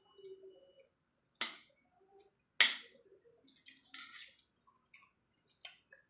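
A metal fork and spoon clinking and scraping on a plate as grilled chicken is cut. Two sharp clinks, the second louder, then softer scrapes and clicks.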